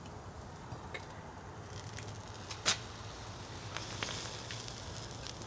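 Molten copper pouring from a crucible into an ingot mold, crackling and hissing as it splashes over and spatters onto concrete, the crackle growing about four seconds in. A sharp clink comes about two and a half seconds in.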